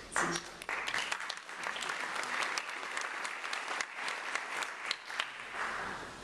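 Audience applauding in a hall: many hands clapping, starting at once and dying away near the end.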